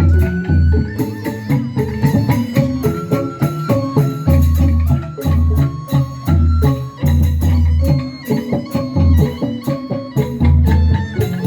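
Instrumental traditional-style music: a stepped melody of struck, pitched notes over regular heavy drum beats.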